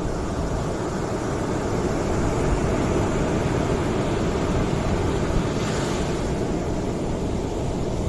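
Ocean surf breaking and washing up a sandy beach: a continuous rushing of water that swells a little in the middle, with a brighter hiss of foam about six seconds in.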